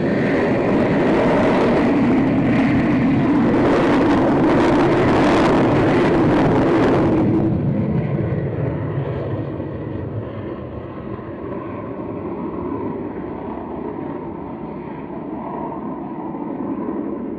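Aircraft engine noise, loud for about the first seven seconds, then falling in pitch and dying down to a quieter, steady engine sound.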